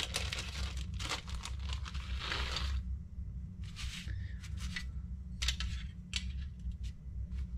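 Crinkling of a small plastic hardware bag being handled for the first few seconds. It is followed by scattered light clicks and scrapes as carbon-fibre frame plates are shifted on the tabletop, over a steady low hum.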